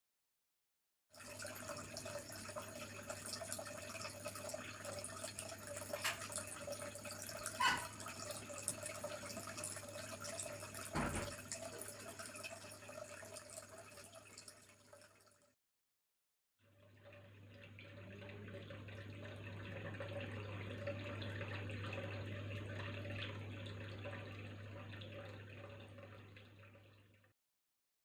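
Small decorative waterfall fountain: a thin stream of water splashing steadily into a glass fish tank over a low steady hum. It runs in two stretches with a brief silence about halfway, and a few light clicks sound in the first stretch.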